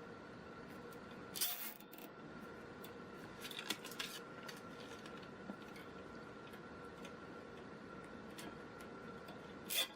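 Plastic zip ties being fastened around a wire frame ring: a few short ratcheting rasps and clicks, about a second and a half in, around four seconds, and near the end, over a faint steady hum.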